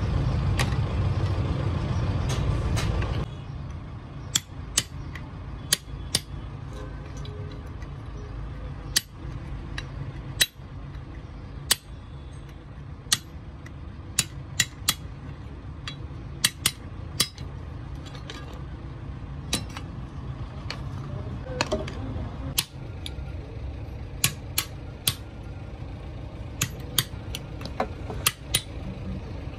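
Sharp, irregular metallic clinks and knocks of steel truck brake shoes and old linings being handled and set down on a stony floor. A loud low rumble fills the first three seconds and then cuts off.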